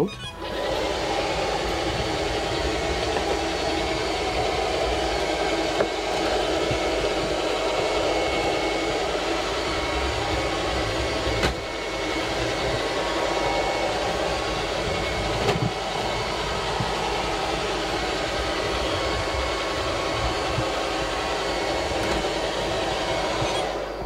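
SilverCrest robot vacuum cleaner starting up in automatic mode and running: its motor and brushes give a steady rushing noise, with a few sharp clicks along the way. It cuts off just before the end.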